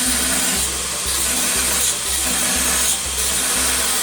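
Ameribrade 2x72 belt grinder running with a 120-grit belt, grinding steel. The grinding hiss swells and drops every second or so as the steel is pressed on and eased off.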